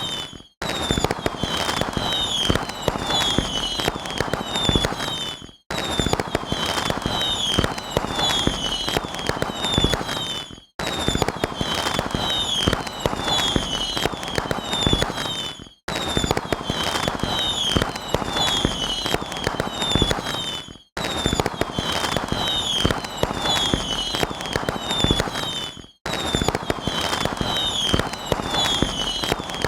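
Fireworks going off: dense crackling pops mixed with many short falling whistles. A roughly five-second stretch repeats over and over, with a brief silent gap between repeats.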